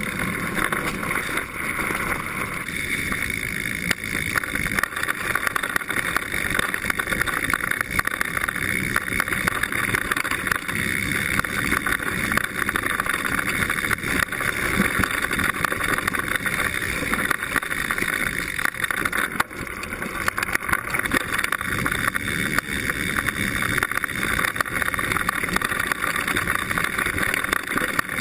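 Mountain bike rolling fast down a dirt trail, heard from a camera clamped to the seatpost: steady tyre noise on dirt with constant rattling and rumble from the bumps, plus wind noise.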